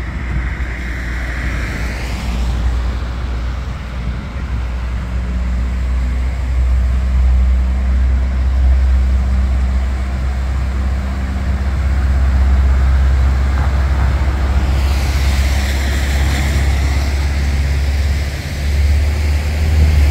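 Road traffic on wet tarmac: vehicle engines running and tyres hissing through water, with two louder swishes of vehicles passing, about a second in and about sixteen seconds in, over a steady deep rumble.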